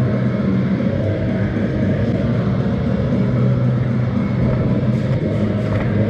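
Loud background music with a steady deep bass line, with a few short sharp clicks near the end.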